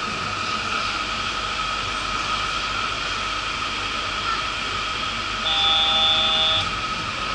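Steady electrical hum inside a Yurikamome rubber-tyred automated train car standing still, with a short electronic tone lasting about a second near the end.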